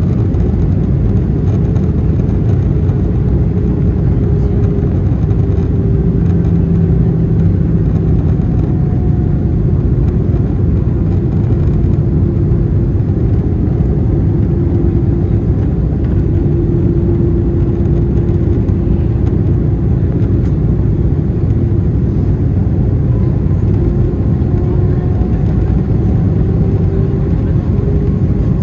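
Steady cabin noise of an Airbus A320-214 in flight, heard from a passenger seat: the hum of its CFM56-5B engines and the rush of air over the fuselage, with faint engine tones drifting slowly up and down in pitch.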